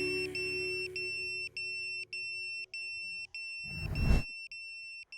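FPV racing drone's piezo beeper sounding a steady run of long, high beeps, a little under two a second. About four seconds in, a short loud rush of noise sounds over it.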